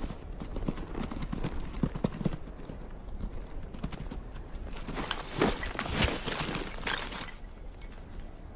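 Bharal hooves clattering on rock and stony ground as the animals run across a steep cliff. Many quick knocks, thickest between about five and seven seconds in, then dying away.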